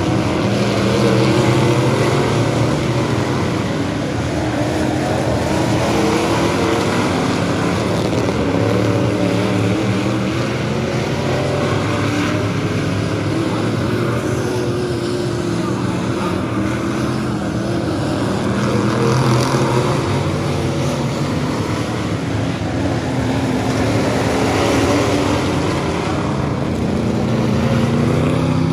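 Several Bomber-class dirt-track stock car engines running at race speed around the oval, the sound swelling and easing as the pack comes by.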